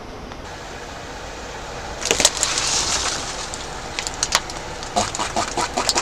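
An object being crushed under a car's tyre, cracking and crunching: a burst of crunching with a hiss about two seconds in, then a run of sharp cracks and snaps in the last two seconds.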